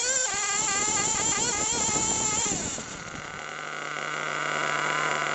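HPI Trophy 3.5 nitro buggy's small two-stroke glow engine running at high revs, its pitch wavering as the buggy drives over grass. About three seconds in it drops off and settles to a steady idle as the buggy stops.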